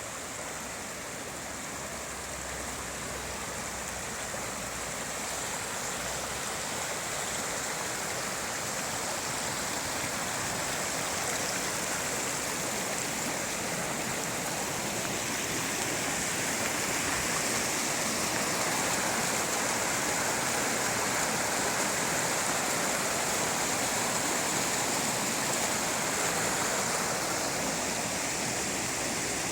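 Mountain river flowing fast, a steady rush of white water that grows slightly louder over the first half.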